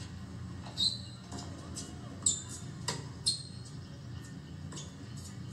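Tennis ball being hit with racket strings and bouncing on a hard court during a rally: a few sharp pops with a brief ringing, the loudest just past two seconds in, over a low steady background hum.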